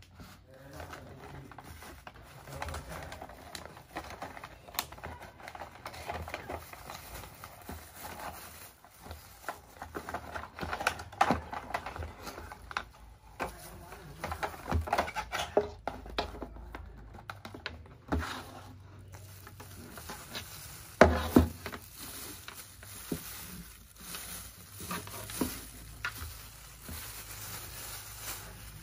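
Cardboard box and plastic wrap being handled: a cardboard insert sliding and tapping, and plastic wrap crinkling and rustling, with scattered small clicks. About two-thirds of the way through come two sharp knocks, the loudest sounds.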